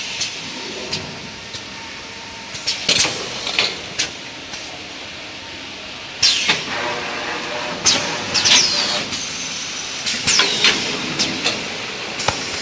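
XY-AI-653D nine-roll toilet-paper bundle packing machine running, with a steady machine noise. Every second or two come sharp mechanical knocks and short hisses that fall in pitch, like pneumatic cylinders firing and venting air.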